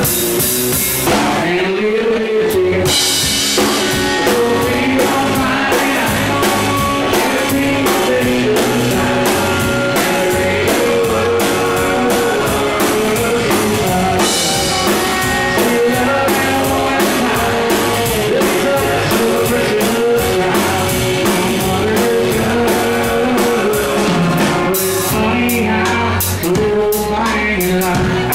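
Live country-rock band playing a song: drum kit, electric and acoustic guitars and bass, with a lead vocal. The drums and cymbals drop out briefly about a second in, then the full band comes back in.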